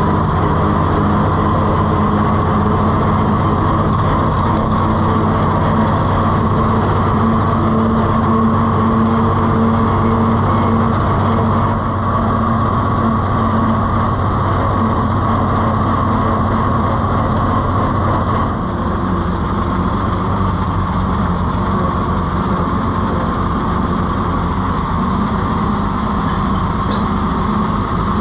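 Oliver 70 tractor's six-cylinder gasoline engine running steadily while the tractor is driven. The engine note drops slightly about two-thirds of the way through.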